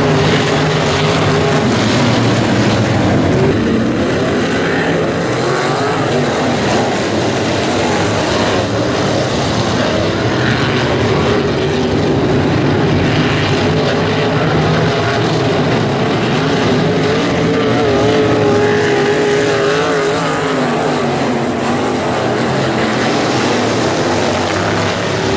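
Several sprint car engines racing together in a loud, continuous drone. Their overlapping pitches waver up and down as the cars circle the track.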